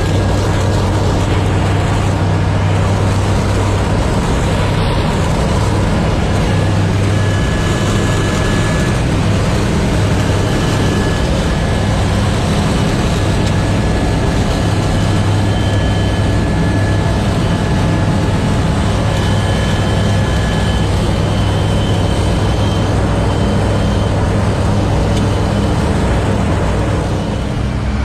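Zlin Shock Cub's piston engine and propeller running at takeoff power, a loud steady drone heard from inside the cockpit through the takeoff run and climb, easing slightly near the end.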